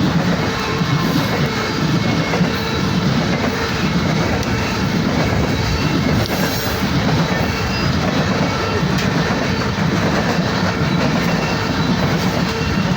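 A loaded coal train rolling past: the steady rumble and clatter of the hopper cars' steel wheels on the rails.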